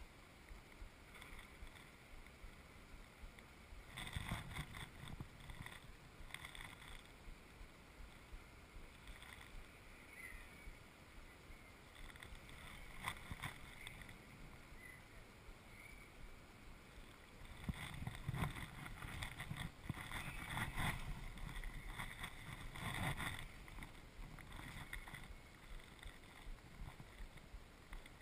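Faint clicking and rustling in irregular bursts, busiest in the second half: a spinning reel being wound and the angler's clothing moving as a chub is played on the rod.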